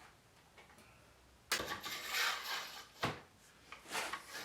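Small metal screws and parts handled on a workbench: a scraping rub lasting about a second, then a sharp click and a few lighter clinks.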